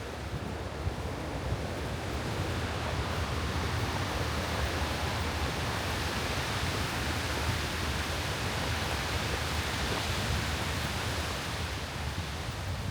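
Blizzard wind, a steady rushing that swells through the middle and eases near the end.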